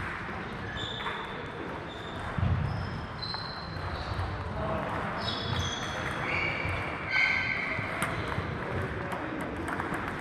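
Table tennis hall ambience: scattered clicks of celluloid table tennis balls on tables and bats from several matches at once, with short high squeaks and faint voices echoing in the large sports hall.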